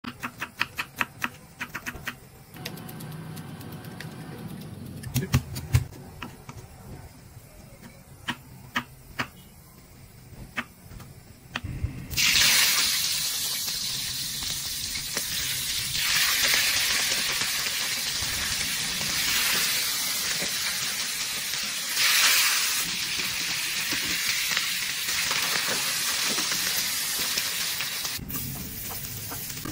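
Knife chopping red onion on a wooden chopping block: quick taps at first, then scattered single cuts. About twelve seconds in, mackerel (galunggong) goes into hot oil in a wok and sizzles much louder. The frying hiss swells several times before it cuts off near the end.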